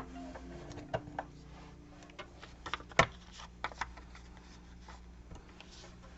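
Paper being handled during collaging: rustles with scattered light taps and clicks, the sharpest click about three seconds in, over a faint steady low hum.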